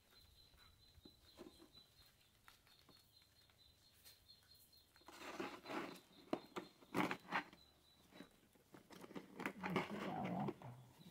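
Quiet at first, then two spells of rustling with sharp knocks, from about five to eight seconds in and again near the end: wet banana fibres being handled and pushed down into a container of dye.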